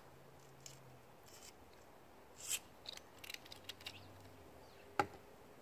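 Faint scattered small clicks and rustles of plastic Beyblade tops and launchers being handled, with one sharper click about five seconds in.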